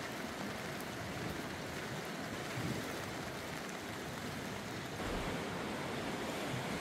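A steady, even rush of stormy weather, rain and wind on the tarp overhead, a little louder near the end.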